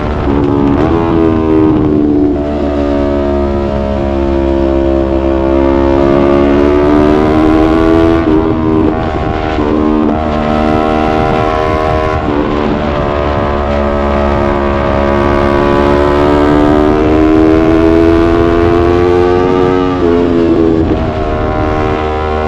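Yamaha YZF-R3 parallel-twin engine under load on the ride, its revs climbing and dropping with several quick breaks where it shifts gear, about five times, including one long pull building from about 13 to 20 seconds in.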